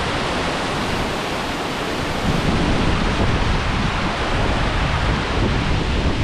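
Waterfall: white water rushing over the rock lip at the top of the falls, a steady, unbroken rush of noise.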